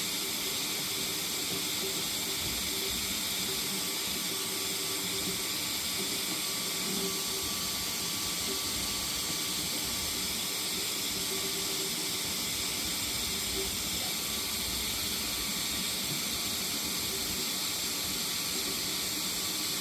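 Paint being sprayed: a steady, continuous hiss.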